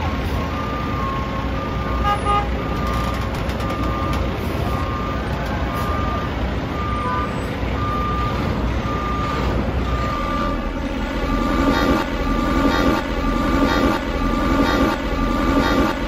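Busy city street noise: a steady traffic rumble with a vehicle's reversing alarm beeping about once a second. About ten seconds in, the din grows louder and fuller.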